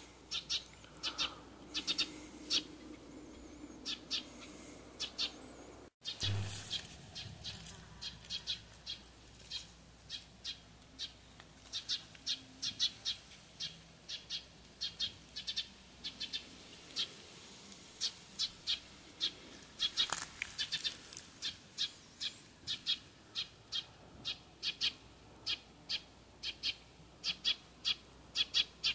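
A bird chirping over and over, short high chirps coming two or three a second, with the sound cutting out for an instant about six seconds in.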